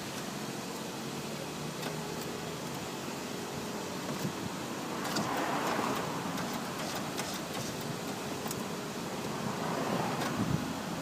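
Steady outdoor background noise with two vehicles passing by, the first about five seconds in and the second near the end, each swelling and fading away.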